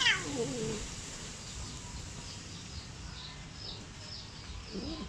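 A domestic cat meows once at the start and begins another meow near the end. Between them a small bird chirps in the background, short high notes about two a second.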